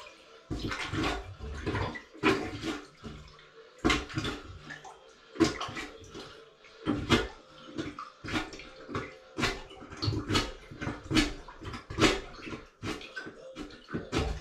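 Water sloshing and splashing in a toilet bowl as a plunger is worked up and down in quick, irregular strokes, about one a second, forcing the water down the drain to empty the bowl.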